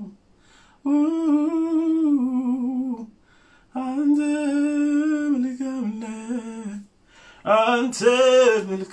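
A man singing three long wordless phrases of a worship song, each held on slow, slightly wavering notes with short breaks between them.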